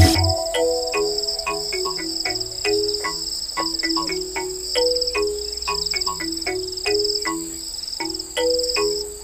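Background music: a repeating melody of short low notes, each with a light click at its start, over a steady high insect-like trill that pulses roughly once a second, in the manner of a nature soundscape.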